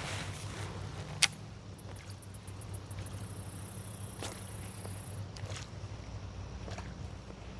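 Baitcasting fishing reel during a cast: a sharp click about a second in, a quick run of ticks, then a high hiss for about two seconds as line pays out. A steady low hum runs underneath.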